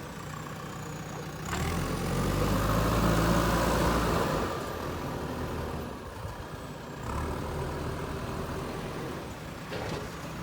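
Diesel engine of a JCB 3DX Super backhoe loader running steadily. It revs up and loads harder about a second and a half in, then drops back to a lower working speed after about three seconds.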